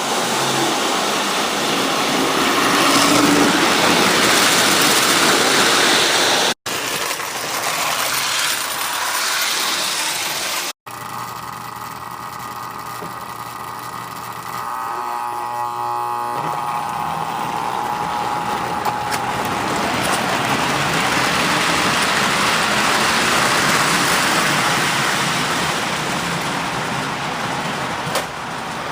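Lionel O-gauge model trains running on the layout's track: a steady, noisy rumble of wheels and motors. The sound breaks off abruptly twice in the first half.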